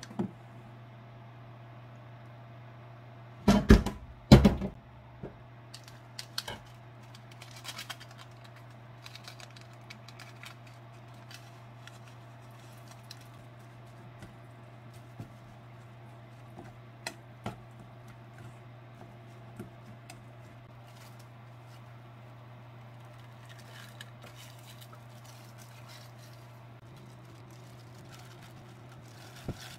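Kitchen handling sounds of rice being seasoned and mixed with a plastic rice paddle in a stainless steel bowl: two loud knocks about three to four seconds in, then scattered small taps and clicks against the metal bowl, over a steady low hum.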